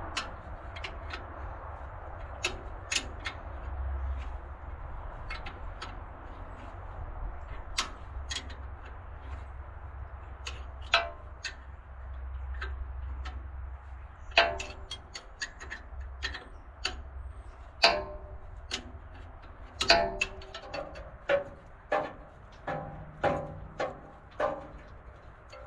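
Hand tools clicking and clinking against metal at irregular intervals while a bolt is worked loose, the clicks coming thicker in the second half, some with a short metallic ring. A steady low rumble runs underneath.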